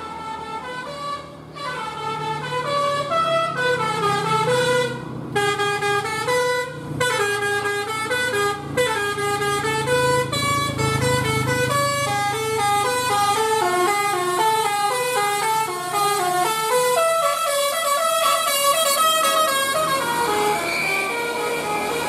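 Basuri telolet musical air horn on a bus playing a rapid melody of stepped notes, over the low rumble of the bus engine as it comes past. The tune stops near the end.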